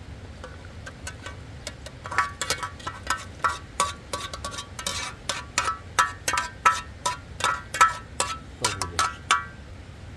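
Small metal bells or chimes ringing in irregular clinks, several strikes a second, faint at first and louder from about two seconds in, stopping shortly before the end.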